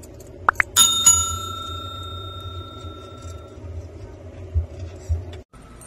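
A small bell struck twice in quick succession, its clear high tone ringing on and fading over a couple of seconds.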